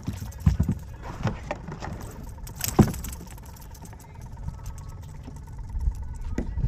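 Scattered knocks and thumps from handling a just-landed redfish aboard a kayak, over a steady low rumble. The loudest knock comes about three seconds in.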